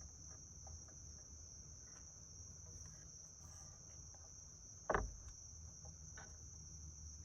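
Steady high-pitched insect chirring. A single sharp knock comes about five seconds in, with a fainter one a second later.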